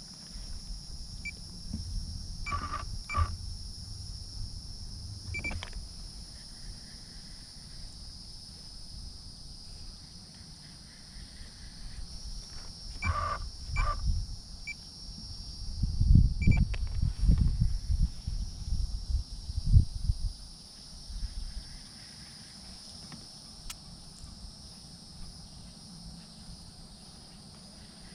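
Steady high-pitched chorus of insects such as crickets, with a few short calls around three seconds in and again near the middle, and a stretch of low rumbling noise in the middle.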